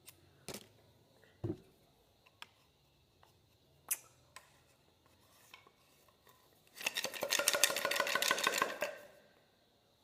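Light knocks and clicks of a bamboo flute tube being handled, then a fast rattling, scraping run of clicks lasting about two seconds near the end.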